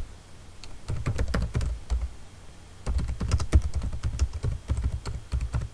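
Typing on a computer keyboard: a short run of keystrokes, a brief pause, then a longer run of keystrokes.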